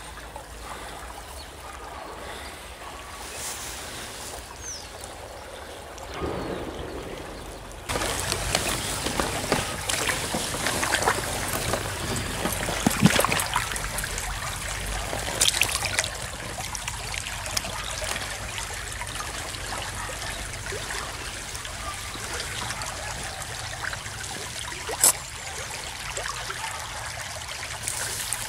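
Small stream trickling, growing louder and busier about eight seconds in, with splashing and handling noise as a caught brown trout is lowered into the water and let go. One sharp click near the end.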